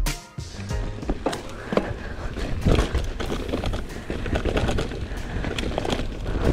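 Mountain bike riding over slickrock sandstone: tyres rolling and grinding on gritty rock, with irregular clatter and knocks from the bike over the bumps and a steady low rumble underneath.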